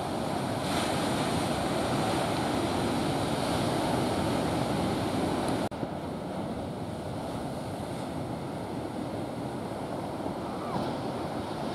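Ocean surf breaking and washing up the beach, a steady wash of noise with some wind on the microphone. The sound drops out for a moment about halfway through.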